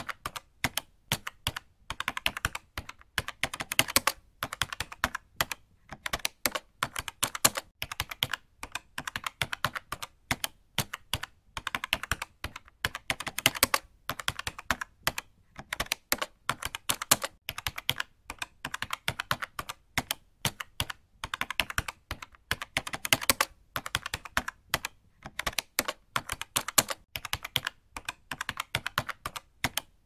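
Computer keyboard being typed on hard and fast: rapid runs of sharp key clicks broken by short pauses.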